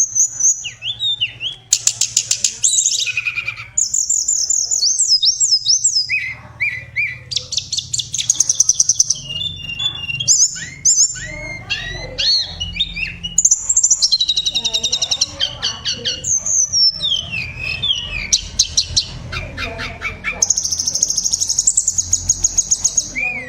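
Flowerpecker (tledekan) singing almost without pause. Fast high trills and rapid runs of repeated notes alternate with short sweeping whistles, a varied song of the kind kept as a vocal tutor for songbirds.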